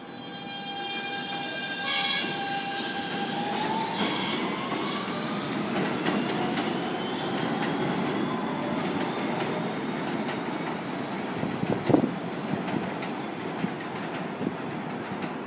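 R160B Siemens subway train pulling out and accelerating away: its propulsion gives a steady electric whine that starts rising in pitch about three seconds in and keeps climbing as the train picks up speed, over the rumble of wheels on the track. A single sharp knock about twelve seconds in.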